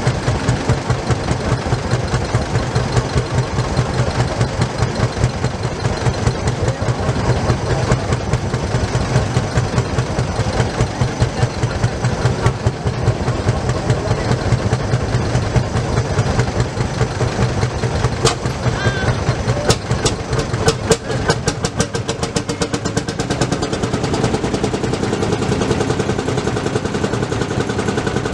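An old tractor engine running with a rapid, even beat, with a cluster of sharp pops about two-thirds of the way through.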